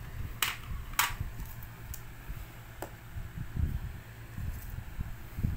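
Handling noise from a phone being moved about: an uneven low rumble, with two sharp clicks about half a second and a second in and a couple of fainter ticks after.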